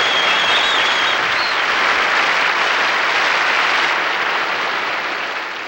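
Audience applauding steadily, with one person whistling over it in the first second; the applause fades away near the end.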